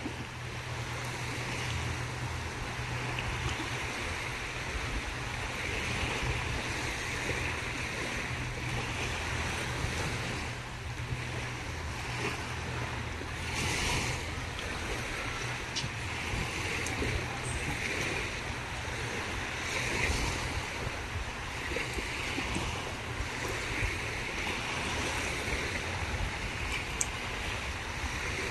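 Small waves washing onto the shore, the surf swelling and easing every few seconds, with a low wind rumble on the microphone.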